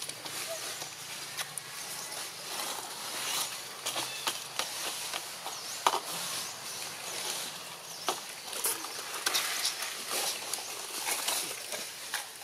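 Outdoor ambience: a steady high hiss with scattered rustles and sharp clicks throughout, and no calls.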